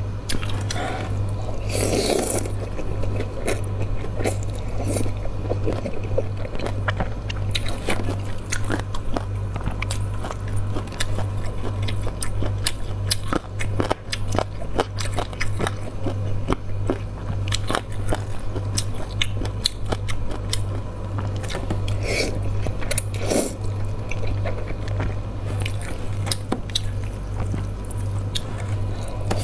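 Close-miked mouth sounds of someone eating cold noodles: steady chewing with many small wet clicks and crunches, and a couple of louder slurps of noodles. A steady low hum runs underneath.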